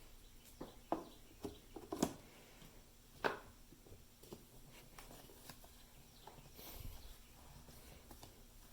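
Faint scattered clicks and light knocks, a few in the first three and a half seconds, the sharpest about two seconds and three seconds in, then only low background noise with a soft swell near the end.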